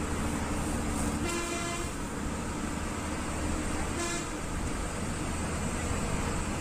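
Bus engine and road noise, heard from inside the bus, with a vehicle horn honking twice: a half-second toot about a second in and a short one about four seconds in.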